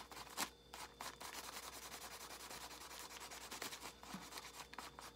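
Felt-tip marker scratching back and forth over a paper coffee filter, a soft steady rubbing of strokes, with one sharp tick about half a second in.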